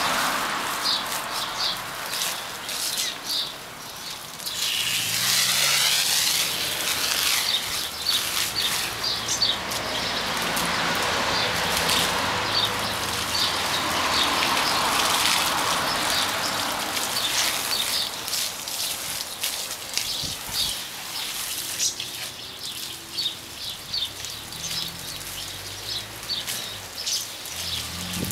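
Water hissing from a garden hose spray nozzle as it soaks a person's clothing, swelling and fading and weaker in the last third. Birds chirp over it throughout with many short repeated calls.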